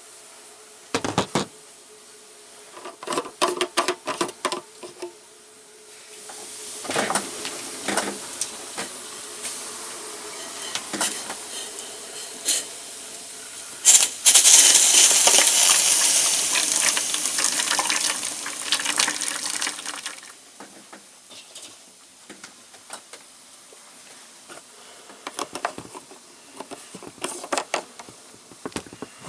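Hot water being poured into a hot-water bottle, with clinks and knocks of handling before and around it; the pouring rises in level and is loudest for about six seconds from just past the middle, then tails off into a few more knocks.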